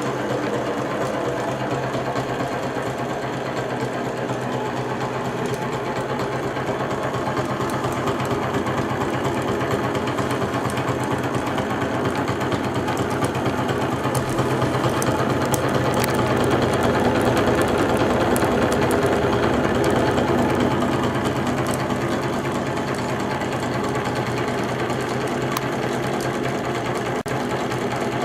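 Homemade brass Stirling (hot-air) engine running fast, its crank linkages and flywheel making a steady, rapid mechanical clatter that swells a little in the middle.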